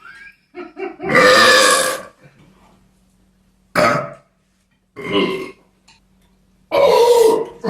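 A person burping loudly four times: a long burp about a second in, two shorter ones around four and five seconds, and another long burp near the end.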